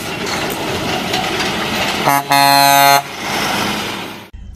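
Truck air horn sounding twice, a short toot then a held blast of under a second, over the steady noise of a lorry driving by, which fades out near the end; an intro sound effect.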